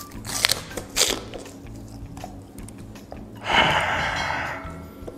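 A man biting into half a raw red onion: two crisp crunches about half a second and a second in, then quieter chewing. About three and a half seconds in comes a loud open-mouthed breath out lasting about a second.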